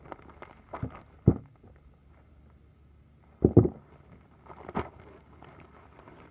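Handling noise from opening a paper mailer envelope: paper rustling with several knocks on the table, the loudest a short cluster about three and a half seconds in and another near five seconds.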